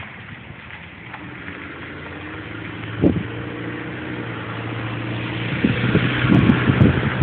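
An engine running, growing steadily louder, with a single knock about three seconds in and a cluster of low thumps near the end.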